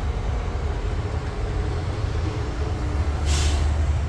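Steady low rumble of background noise, with a short hiss about three seconds in.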